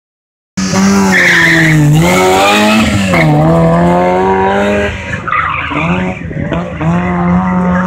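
Fiat 126p rally car with a swapped engine launching hard from the start line. The engine revs high and drops in pitch at two quick upshifts, with tyres squealing briefly about a second in. Later the engine note comes and goes as the car accelerates away across the lot.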